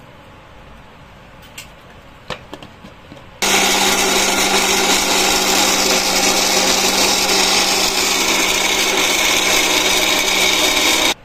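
A few light clinks, then an electric mixer-grinder with a steel jar runs steadily for about eight seconds, grinding dry-roasted whole spices for garam masala that are still coarse from a first grind, and cuts off suddenly.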